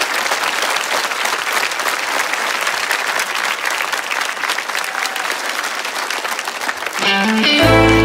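Studio audience applauding steadily. About seven seconds in, the applause gives way to the song's intro: a quick rising run of notes on bar chimes, then a low sustained bass under held chords.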